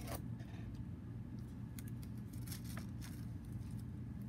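Soft crinkles and light ticks of a gold foil sheet and washi tape being smoothed and pressed onto cardstock by hand, several brief ones scattered through, over a steady low hum.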